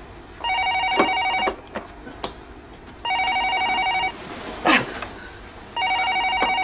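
Corded landline telephone ringing with an electronic trill: three rings, each about a second long, about two and a half seconds apart. Between the second and third rings there is a short, loud sound falling in pitch.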